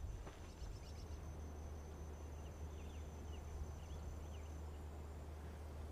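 Faint outdoor ambience: a steady thin high insect drone that stops about three-quarters of the way through, a few faint short chirps, over a low steady hum.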